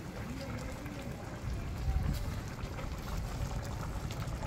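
Steady low rumble and hiss of background noise, with faint voices in the distance.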